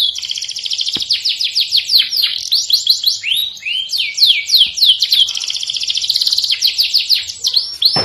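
Domestic canary singing: rapid runs of repeated falling whistled notes, breaking twice into very fast trills, near the start and again around the middle.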